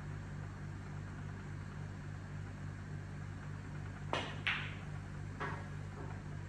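A snooker shot over a steady low hum: about four seconds in, the cue tip clicks on the cue ball, a moment later a louder click as the cue ball strikes the black, then just under a second after that a softer knock as the black drops into the corner pocket.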